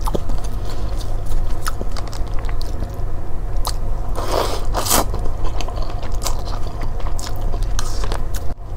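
Close-up mouth sounds of eating spicy Mie Sedaap Cup instant noodles: chewing with small wet clicks, and a longer slurp of noodles about four seconds in.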